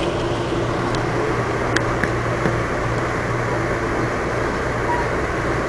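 Steady running rumble of an Amtrak Silver Meteor passenger coach at speed, heard from inside the car, with a low steady hum. A few light clicks come about one to two and a half seconds in.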